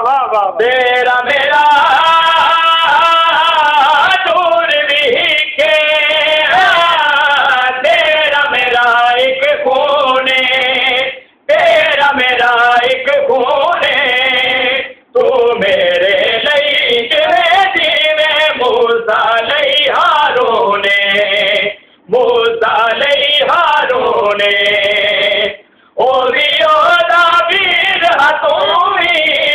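Two young men singing a Punjabi devotional qaseeda with long, held, wavering notes. The singing stops briefly for breath four times.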